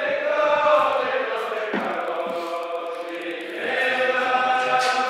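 Voices chanting in long held notes that slide slowly up and down.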